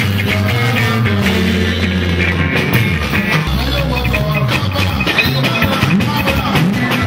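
Live band playing: electric guitars over held low notes and a drum kit keeping a steady beat.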